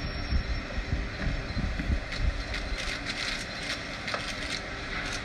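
Steady low background rumble with irregular thuds, and scattered clicks and knocks from about two seconds in.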